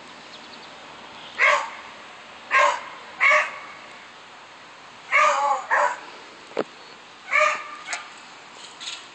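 A dog barking, about seven short barks in irregular bursts, some in quick pairs.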